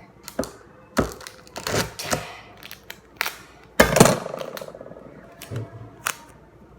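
Scattered knocks and clicks of objects being handled, with one louder knock about four seconds in followed by a brief rattling buzz.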